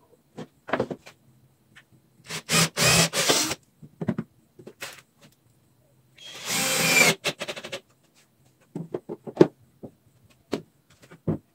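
Handheld power tool on wood, run in short bursts of about a second, with clicks and knocks of wood and tools being handled between them.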